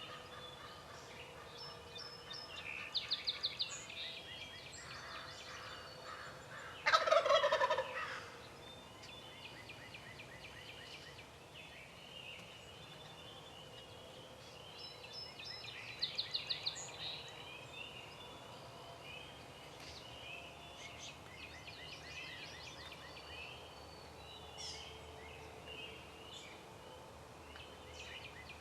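A turkey gobbles once, loud and rapid, about seven seconds in, while other birds keep singing with scattered chirps and two short rapid trills.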